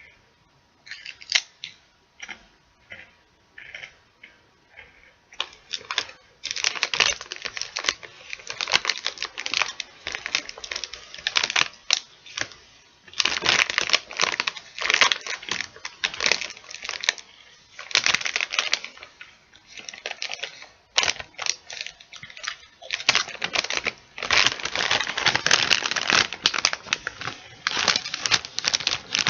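Plastic chip bag crinkling as it is handled: scattered light crinkles for the first several seconds, then dense, continuous crinkling broken by a few short pauses.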